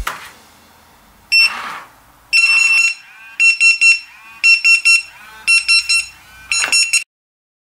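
Retekess TD175S restaurant pager beeping: one short high beep, then a longer beep, then groups of three quick high beeps about once a second, cutting off suddenly.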